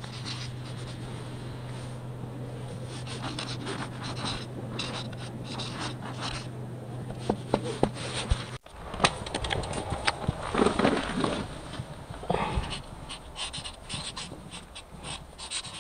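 Marker tip scratching over rough concrete in short, irregular strokes while a tag is written. A low steady hum underneath stops abruptly about halfway through.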